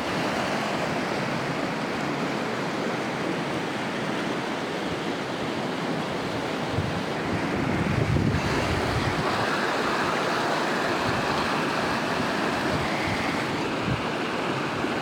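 Floodwater rushing in a steady, even wash, with wind buffeting the microphone at times.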